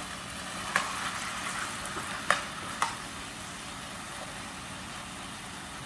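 Diced vegetables sizzling steadily in a frying pan on a portable gas stove, with three sharp clacks of the spatula during stirring, the loudest a little over two seconds in.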